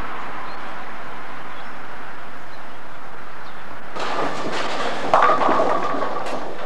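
A steady even noise, then, from a cut about four seconds in, the din of a bowling alley. A bowling ball is released and rolls down the wooden lane, with a sudden loud clatter about five seconds in, like balls or pins crashing.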